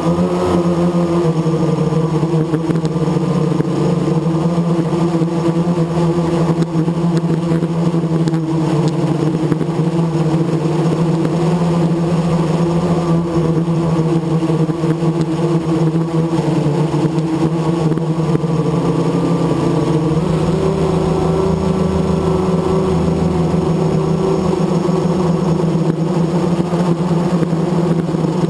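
Blade 350 QX quadcopter's four brushless motors and propellers whirring steadily in flight, close up from its onboard camera; the pitch shifts slightly about twenty seconds in.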